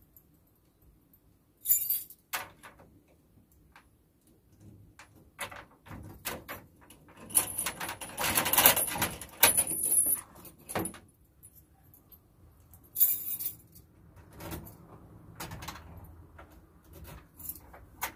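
Small hard items clinking and jangling as someone rummages at a cupboard, with scattered sharp clicks and knocks; a busier stretch of jangling and clattering from about seven and a half to ten and a half seconds in.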